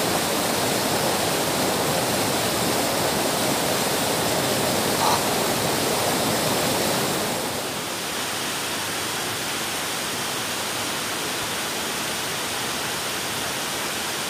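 Steady rushing noise of flowing water, dropping a little in level about halfway through.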